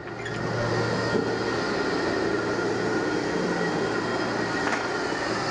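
Industrial vacuum blower running steadily: a rushing noise with a low hum and a few faint, steady whistling tones, swelling up over the first half-second.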